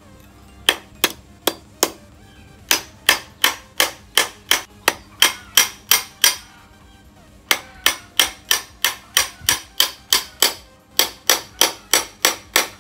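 Repeated sharp metal knocks on the end of a motorcycle fork tube, driving the Modenas Kriss 110 crankshaft down into its bearing seat in the crankcase half. The knocks come two to three a second in three runs: a short run of four, then a pause, then about ten, a brief pause, and a long final run.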